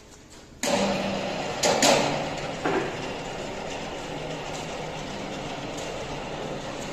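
Big industrial furnace running: a steady rushing roar with a low hum sets in suddenly about half a second in, and a few metallic knocks come in the first few seconds.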